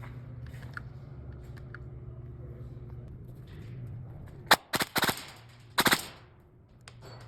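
Airsoft gun firing: a single sharp shot about four and a half seconds in, then a quick burst of several shots, then two more shots close together near six seconds. A low steady hum runs underneath beforehand.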